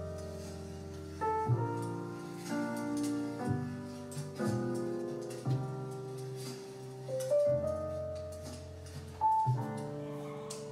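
Background music: slow, gentle piano, with a new chord struck about once a second over low bass notes.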